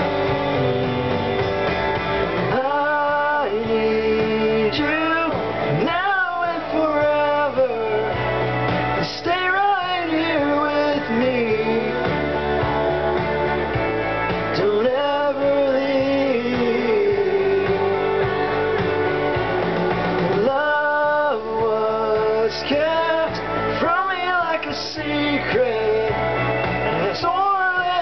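A man singing a slow love song over acoustic guitar.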